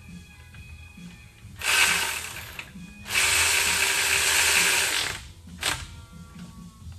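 Cordless electric ratchet running in two bursts, a short one of about a second and then a longer one of about two seconds, followed by a single sharp click.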